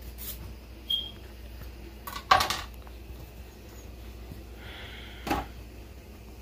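Kitchen knife knocking on a plastic cutting board while sweet potato slices are cut into small cubes: a few scattered clacks, the loudest cluster a little over two seconds in and another near five seconds.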